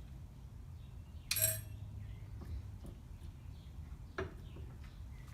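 Two light metallic clinks: the first, about a second and a half in, rings briefly; the second, about four seconds in, is a shorter, sharper click. A faint low hum runs underneath.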